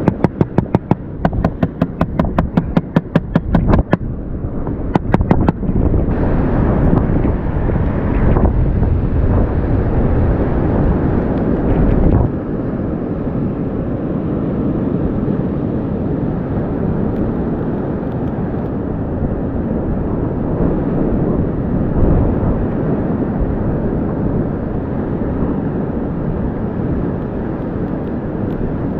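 A rapid, even run of clicks, about five a second, for roughly the first four seconds, with a few more just after. Then steady wind noise buffets the microphone.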